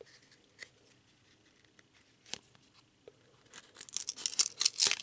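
Trading cards being handled in the hand and slid against one another. A few faint ticks, a sharper click a little over two seconds in, then scratchy sliding and rustling for the last second and a half.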